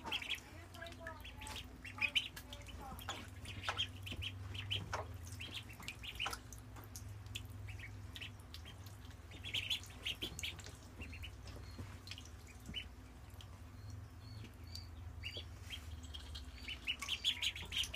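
Week-old ducklings peeping in short high calls, now scattered, now in quick clusters, loudest about two seconds in and near the end. Scattered faint clicks and a low steady hum run underneath.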